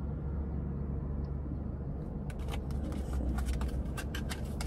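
Steady low rumble of a car's running engine heard from inside the cabin, with small clicks and rustles of product packaging being handled starting about two seconds in.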